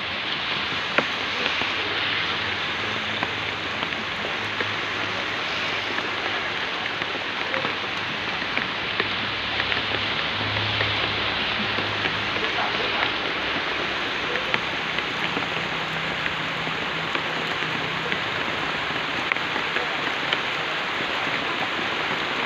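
Steady rain pattering, a continuous hiss full of small drop ticks, with a faint low hum underneath.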